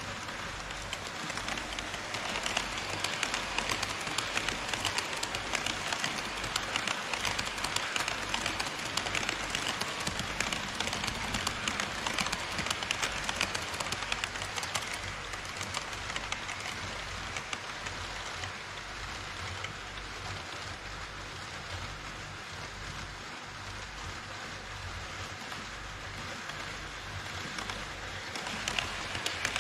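HO scale model trains running on Kato Unitrack: metal wheels click rapidly and continuously over the rail joints, with a rumbling whir from the cars and motors. It is louder in the first half, eases in the middle and rises again near the end.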